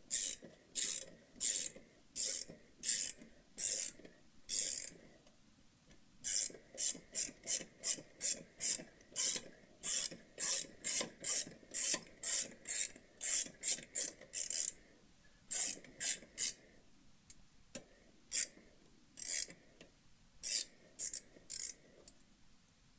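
Socket ratchet clicking in runs of quick strokes as an 8 mm socket unscrews the rear brake pad pin, with short pauses between runs; the clicks come faster in the middle and thin out near the end.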